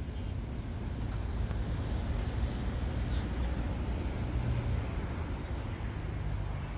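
Regional train running, a steady low rumble with rushing noise over it.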